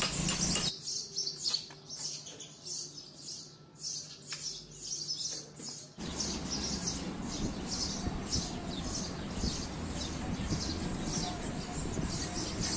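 Small birds chirping over and over, a few short high chirps a second, with a low background rumble that drops away for a few seconds and comes back about halfway through.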